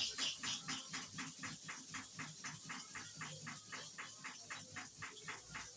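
Hair-clipper blade rubbed back and forth on a sharpening stone: a steady run of quick, even scraping strokes, about five a second.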